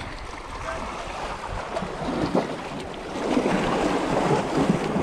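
Small sea waves washing against rocks, with wind buffeting the microphone; the wash grows louder about three seconds in.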